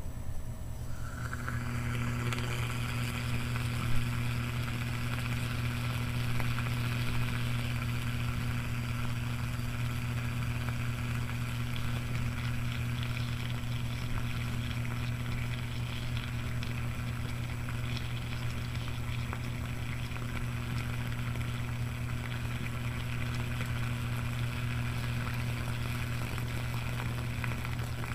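Peter Davey heater running on mains power, drawing about 7.5 amps: a steady low hum with a fizzing, sizzling hiss of the water bubbling around the metal bowls, both coming in about a second in.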